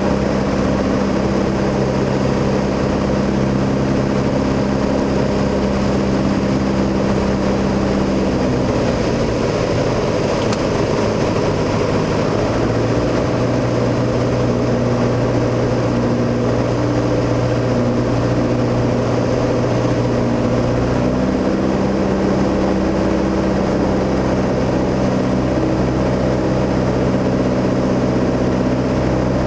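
Piper PA-28-161 Warrior's four-cylinder Lycoming O-320 engine and propeller running steadily, heard from inside the cabin. The engine note drops about eight seconds in and rises again about twenty-one seconds in.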